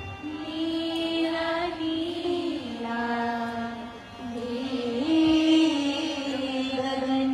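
Indian devotional song playing as dance music: a voice holds long notes, stepping slowly between pitches, with a wavering held note in the second half.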